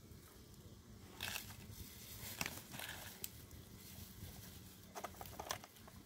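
Hinged wire grill basket being closed over meat and fastened by hand: a few light, scattered metal clicks and rattles of the wire, over a faint low background hum.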